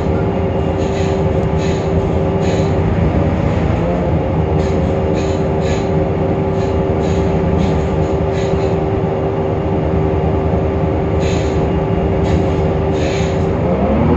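Temsa Avenue LF city bus's DAF PR 228 diesel engine running steadily, with a steady whine over a low rumble and short rattles, an unusual sound that the uploader calls strange and unlike normal. Near the end the pitch starts to rise.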